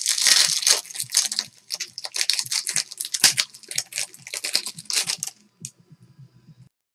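A foil trading-card pack being torn open and its wrapper crinkled in the hands: a dense crackle for about five seconds that then dies away.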